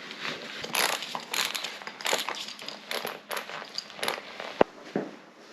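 Close, irregular rustling and crinkling handling noise, with a sharp click a little past four and a half seconds.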